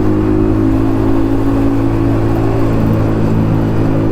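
Yamaha MT-15's single-cylinder engine through an aftermarket Akrapovic exhaust, running at a steady pitch while riding at an even speed.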